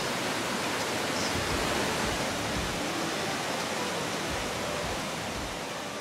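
Waterfall's water pouring and splashing in a steady, even rush, easing slightly near the end.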